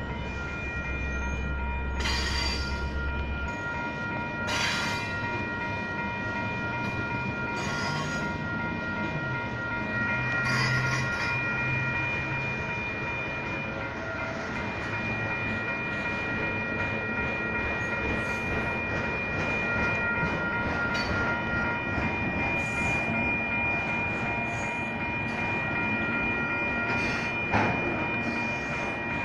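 Freight cars of a Union Pacific manifest train rolling steadily past a grade crossing, wheels clattering on the rails, with a few brief sharp squeals and a single bang near the end. Over it, the crossing's WCH Type 1 bells ring steadily as a set of high tones.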